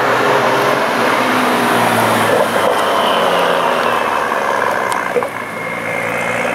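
A car driving past at moderate speed, with a steady engine note and tyre noise, easing off about five seconds in as it moves away.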